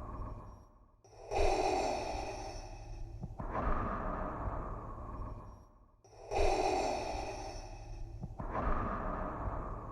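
Darth Vader's mechanical respirator breathing: slow, hissing in-and-out breaths through the mask, about two full cycles of roughly five seconds each, with a brief pause between strokes.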